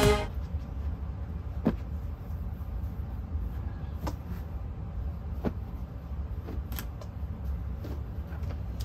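Steady low rumble of background noise, with a few light clicks through it.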